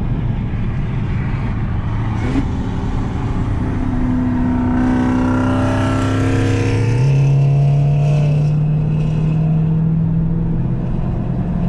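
Dodge Challenger SRT Hellcat Redeye's supercharged 6.2-litre Hemi V8, heard from inside the cabin while accelerating on the highway. Its note rises and grows louder through the middle, peaking about seven seconds in, then settles.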